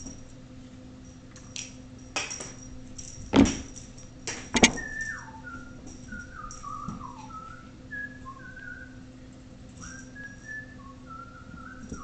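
A person whistling an aimless tune in short stepping and sliding notes, starting about a third of the way in. Before it come a few sharp knocks, the loudest of them close together just before the whistling begins.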